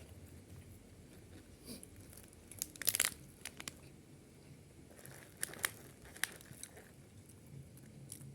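Close-up eating sounds: crunchy bites and chewing, with a cluster of sharp crackles about three seconds in and a few more near five and a half seconds.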